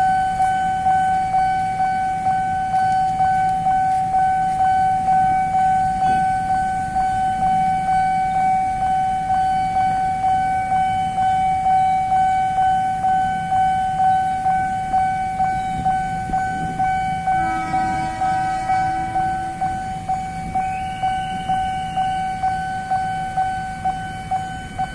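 Railway level-crossing warning bell ringing continuously, an electronic tone pulsing about twice a second. About seventeen seconds in, the approaching train's horn sounds for a couple of seconds.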